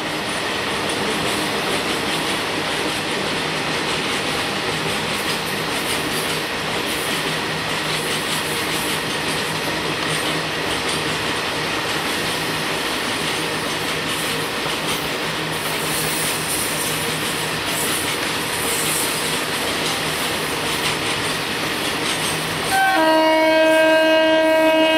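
Indian Railways EMU local train and a freight train running along electrified track: a steady rumble of wheels on rail. About two seconds before the end, a loud multi-tone train horn starts and holds.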